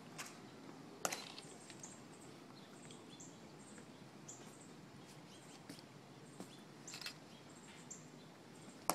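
Hushed open-air crowd ambience with faint, high bird chirps repeating throughout and a few sharp clicks, the loudest about a second in and just before the end.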